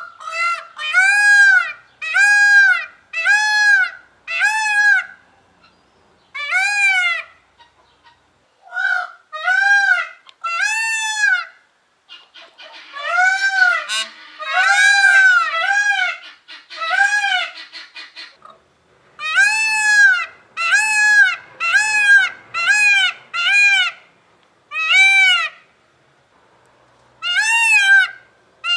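Indian peafowl (blue peacock) calling loudly over and over: short calls that each rise and fall in pitch, about one a second, in runs of several with brief pauses between. Midway the calls come closer together with a rougher edge.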